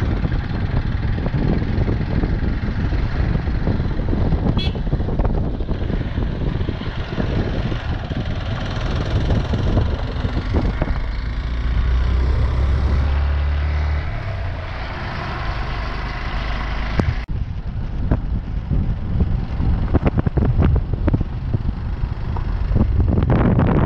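Motorcycle riding on a rough gravel road: the engine runs under heavy wind buffeting on the microphone. The sound changes abruptly about seventeen seconds in, and gusty buffeting dominates after that.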